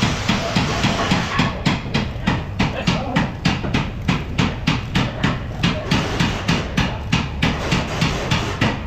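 Hand ratchet on a long socket extension clicking in a steady run of quick strokes, about three a second, turning the bolt of a car's lower engine mount.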